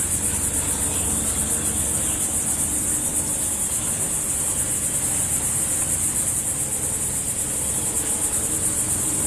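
Insect chorus: a steady high-pitched trill with a fast pulse, over a faint low hum.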